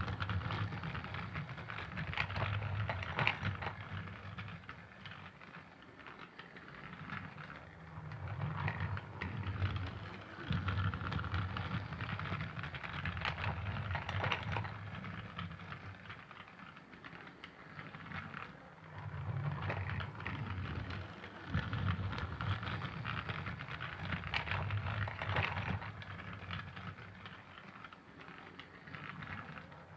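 Thomas the Tank Engine toy train running, a continuous rattling clatter of small clicks that swells and fades every few seconds.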